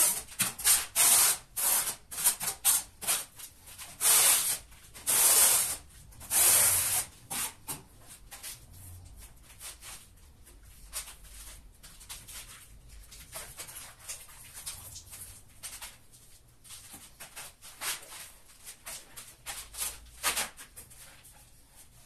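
Notched steel trowel scraping through tile mortar on the back of a large-format porcelain tile: a run of short quick strokes, then three longer sweeps, stopping about seven seconds in. After that come only faint, scattered small knocks and scrapes.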